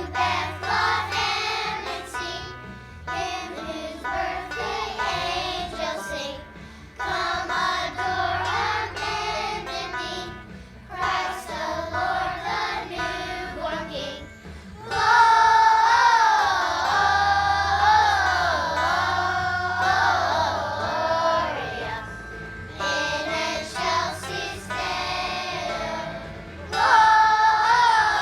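Children singing a song with musical accompaniment, growing louder about halfway through and again near the end.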